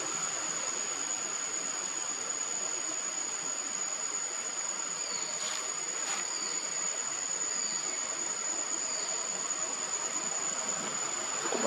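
Insects buzzing in one steady high-pitched tone over an even hiss, with a few faint short chirps from about halfway through.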